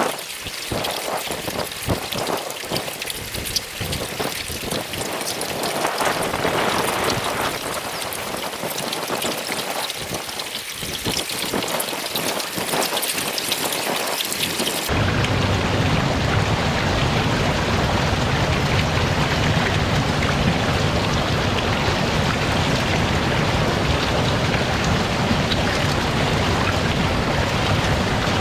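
A dense mass of live eels writhing and slithering over one another around a lump of paste feed, making a wet, rain-like crackling patter. About halfway in it cuts to a steady rush of water pouring into a concrete trough full of eels.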